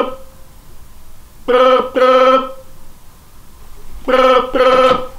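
Telephone ringing in the British double-ring pattern: two pairs of short, steady rings, the pairs about two and a half seconds apart.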